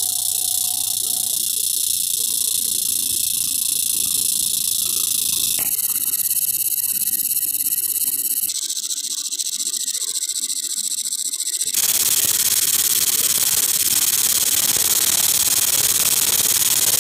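Fiber laser marking machine engraving a porcelain cup, with a steady high hiss as the beam burns into the surface. The hiss changes character abruptly about six, eight and a half, and twelve seconds in.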